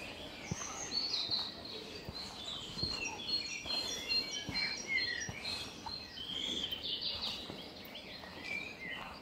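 Songbirds singing in woodland: many short, quick chirps and trills overlapping throughout, with faint low thuds underneath.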